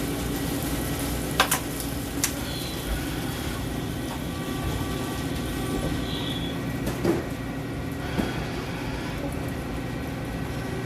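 CNC machine running steadily with a motor hum and a hissing, sizzling noise, typical of metal cutting with coolant. A few sharp metallic clicks stand out, two in the first couple of seconds and a couple more later on.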